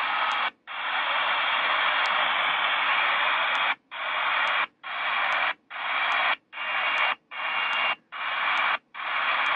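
Shortwave static hissing from a HanRongDa HRD-747 scanner radio, cutting out for a split second each time it steps to the next memory preset. After one break near the start, the breaks come about every 0.8 seconds, each with a faint click.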